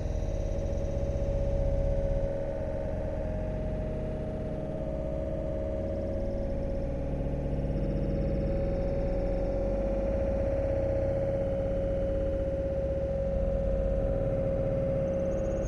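A steady hum at one pitch, drifting slightly lower, over continuous low rumbling noise.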